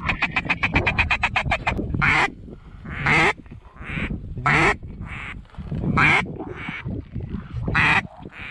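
Mouth-blown duck call worked by a hunter: a fast feed-chuckle run of short notes, about eight a second, for the first couple of seconds, then loud single quacks every second or so, calling to ducks in the air.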